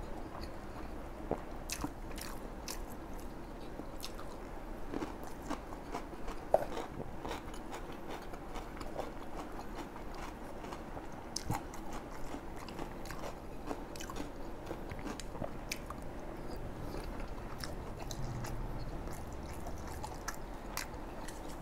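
Close-miked chewing and biting of bún đậu mắm tôm (pressed rice vermicelli and fried tofu), with many short sharp mouth clicks and smacks scattered throughout; one click about six and a half seconds in is the loudest.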